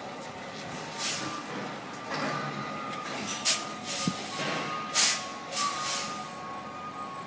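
B-double truck reversing slowly: several short, sharp air hisses from its air brakes, the loudest about halfway through, over a thin steady high whine.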